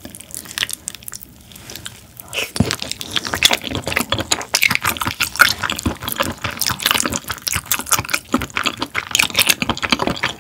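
Steamed abalone being pushed and stirred through thick abalone-innards sauce in a small glass bowl, giving a close, busy run of wet squelching and sticky clicks that starts about two seconds in.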